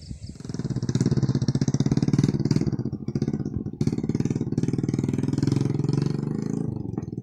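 Small motorbike engines running steadily, starting about half a second in.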